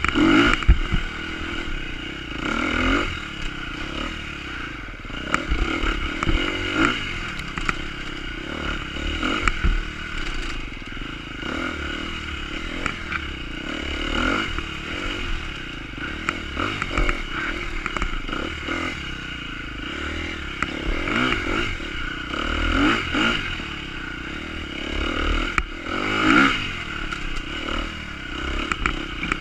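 Dirt bike engine revved in repeated throttle bursts that rise and fall while the bike climbs rocky ledges, with scattered knocks as it goes over the rock.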